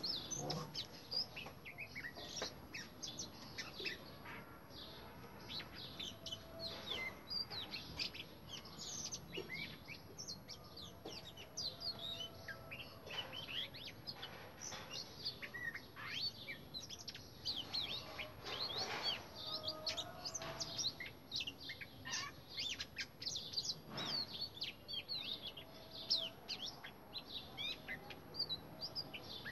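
Oriental magpie-robin singing: a continuous run of varied short whistles and chirps, note after note with brief pauses.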